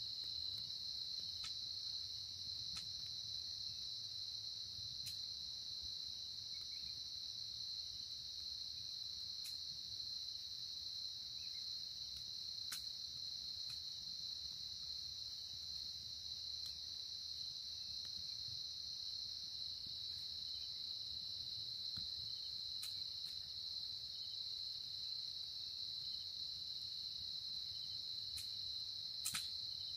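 Crickets chirring in one steady, high-pitched chorus, with a few faint ticks and one sharper click near the end.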